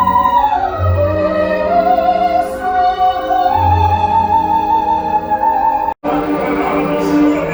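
Operatic singing over orchestral music: a high voice holds long notes, sliding down and then climbing back up. The track breaks off abruptly about six seconds in and resumes with a fuller, choir-like passage.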